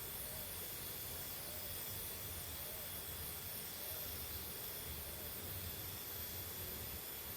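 Steady hissing noise with a faint, thin high tone held over it.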